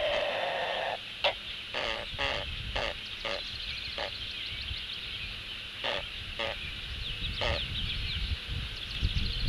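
A string of short, rasping, snore-like calls, about ten of them at uneven intervals, each well under half a second. The uploader takes them for a sleeping great blue heron snoring. A steady high-pitched chorus runs underneath.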